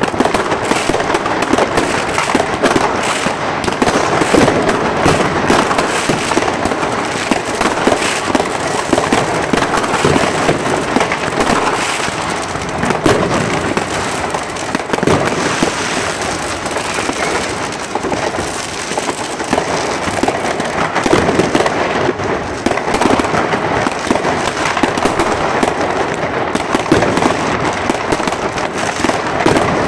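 Fireworks going off in a dense, unbroken barrage of bangs and crackle: rockets bursting overhead and fireworks set off on the ground, many at once.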